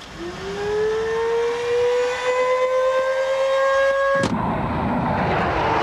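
Saab 37 Viggen's jet engine whining and rising steadily in pitch as it spools up. A little past four seconds in, this gives way abruptly to a loud, steady rushing roar.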